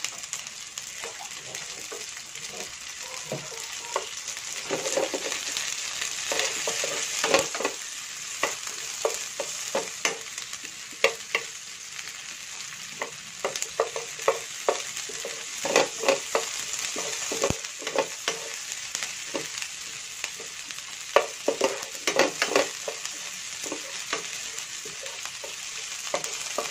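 Ginger and sliced onion sizzling as they sauté in hot oil in a nonstick frying pan. A wooden spatula stirs them, scraping and knocking against the pan many times.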